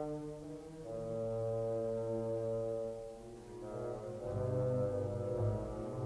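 Orchestra playing slow, sustained chords with low brass to the fore. The chord changes about a second in, fades a little, then deeper brass tones swell in around four seconds in.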